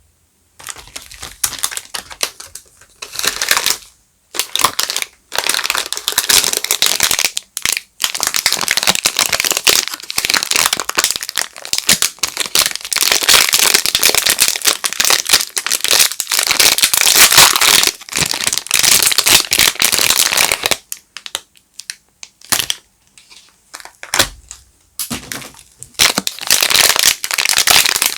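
Soap packaging crinkling and crackling as soap bars are unwrapped by hand. The sound runs in long, dense stretches with short pauses, most of them in the first quarter and around the last third.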